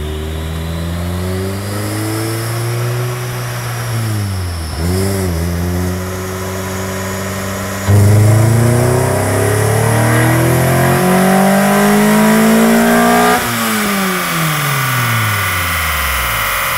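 Toyota Celica ST202's 2.0-litre 3S-GE four-cylinder engine, with a de-catted stainless custom exhaust, running on a rolling-road dyno: the revs climb with a brief dip about five seconds in, then at about eight seconds it goes louder into a full-throttle pull, rising in pitch until it is cut off at about thirteen seconds, after which the revs fall away steadily.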